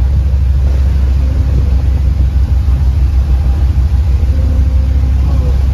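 Narrowboat's diesel engine running steadily, a deep, even rumble heard inside a brick canal tunnel.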